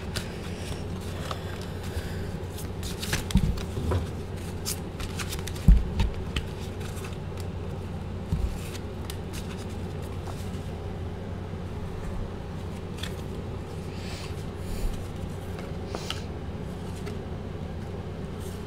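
A deck of oracle cards being shuffled by hand: a run of crisp card flicks and rustles, with a few dull thumps, the loudest about six seconds in.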